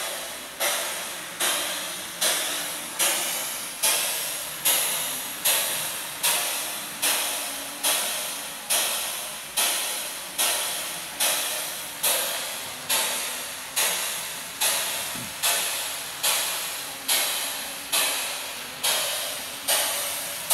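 Steam locomotive chuffing slowly and steadily, a little under one exhaust beat a second, each beat a sharp hiss that fades away before the next.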